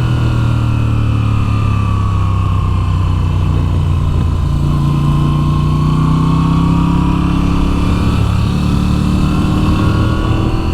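Moto Guzzi V7's air-cooled 853 cc transverse V-twin running steadily under way. Its note sags slightly over the first few seconds, then climbs again around the middle.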